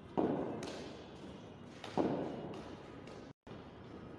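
Two sharp knocks of a cricket ball struck during net practice, about two seconds apart, each ringing out in an echoing concrete hall.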